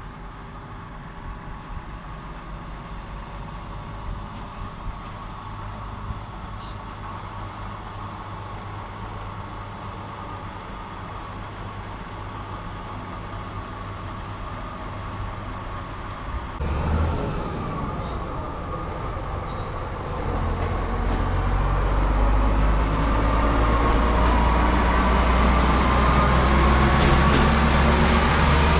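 Diesel engine of a yellow Plasser & Theurer track tamping machine running as it travels along the rails. At first it is fairly faint. About seventeen seconds in it is suddenly louder, then it keeps getting louder as the machine draws close, with a low drone and a rising whine.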